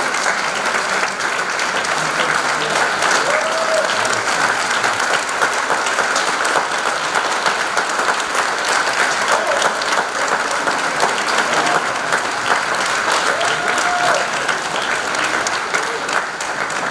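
Audience applauding steadily throughout.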